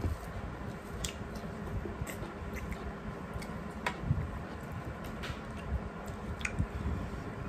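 Hand-eating sounds: fingers squishing and mixing rice and curry on steel plates, with chewing and a few scattered sharp clicks against the metal.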